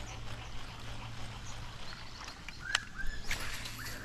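Ambience on a small fishing boat: a steady low hum throughout, with short bird chirps late on. A sharp click about two and a half seconds in is followed by a brief whirring rush.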